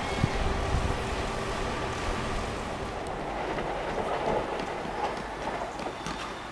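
T4 tram-train running on the rails: a steady rumble, with light clicks from the track joining in about halfway through.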